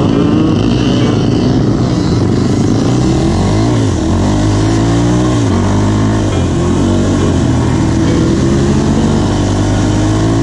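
Can-Am DS 450 sport quad's single-cylinder four-stroke engine running under way from the rider's seat, revving up and easing off several times as the throttle is worked.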